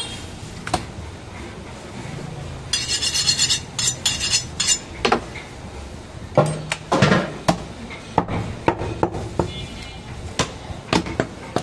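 Butcher's cleaver striking goat meat and bone on a wooden chopping block: a string of sharp knocks, coming thick and fast from about six seconds in. Between about three and five seconds there are bursts of metallic clinking and clatter.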